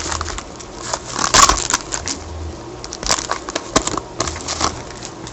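Foil wrapper of a hockey card pack being torn open and crumpled by gloved hands: irregular crinkling and crackling with a few sharper snaps.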